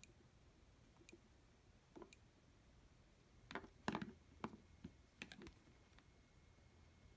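Faint, scattered clicks, then a quick cluster of louder taps and clicks about halfway through: the buttons of a Creative Labs Zen Micro MP3 player being pressed and the player handled while a track is selected.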